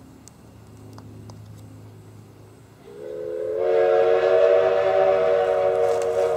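Steam locomotive whistle sounding one long chime blast of several notes together, swelling in about halfway through over a faint low hum.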